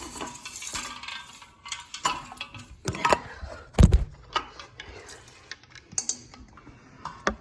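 A ceiling fan being handled and turned over: a scattered run of clinks, clicks and knocks, with one heavy thump about four seconds in.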